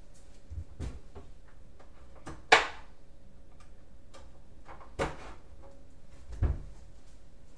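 A few scattered clicks and low thumps over a faint steady hum, the loudest a sharp click about two and a half seconds in, with a low thump near the end.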